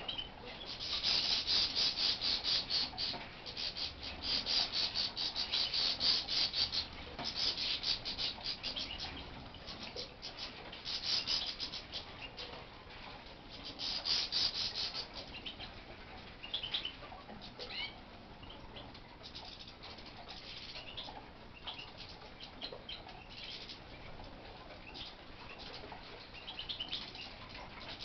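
Aviary finches twittering: several bouts of rapid, high chittering a second or two long in the first half, then scattered short chirps.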